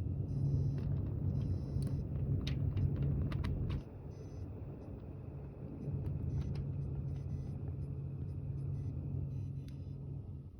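Desktop PC giving off an unexplained low buzzing hum that drops back about four seconds in and returns two seconds later, with a few clicks in between; the owner wonders whether it is coil whine.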